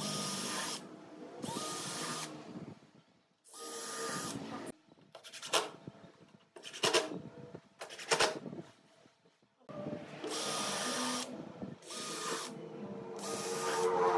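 Makita cordless drill and impact driver running in short bursts of about a second each, with brief pauses between, drilling pilot holes and driving screws into wooden boards. A few of the bursts are short and rattly.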